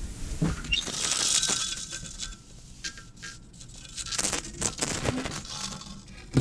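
Dry ice pressed against a steel saw blade, chattering and clicking against the metal with a faint ringing tone as the vibrating blade sings.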